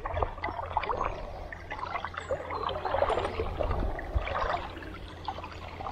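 Shallow river water splashing and trickling in an irregular spatter as an angler wades a few steps through it.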